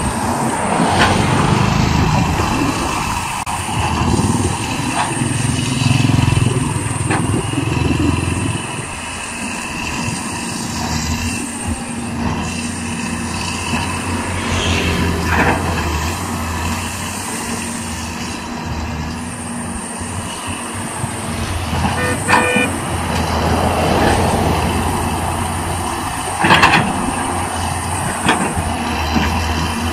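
Caterpillar 320D hydraulic excavator's diesel engine running steadily under load as the machine tears into brush and small trees, with rustling of the vegetation and a few sharp cracks of breaking branches, the loudest near the end.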